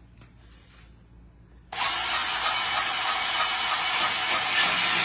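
Ryobi 18-volt cordless band saw switching on about a second and a half in and then running steadily, its blade cutting through the shower-door head rail with a loud, even hiss.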